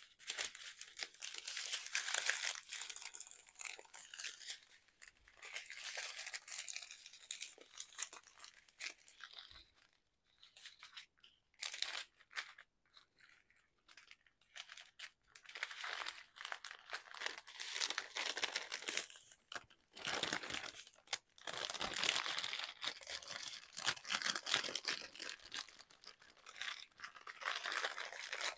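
Clear plastic bags crinkling and rustling as strips of small zip-lock bags of diamond-painting drills are handled and packed into a larger plastic bag. The noise comes and goes, with a quieter spell of a few seconds around the middle.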